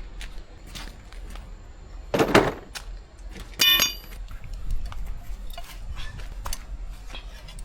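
Metal hand tools clinking and clattering as they are handled, with a louder burst of noise about two seconds in and a ringing metallic clink a little after.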